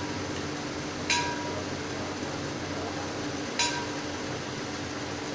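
Two short, sharp electronic clicks about two and a half seconds apart, each with a brief two-tone beep, which fit a smartphone's button and screen-lock sounds as its screen switches on and off. Under them runs a steady hum of a fan or air conditioner.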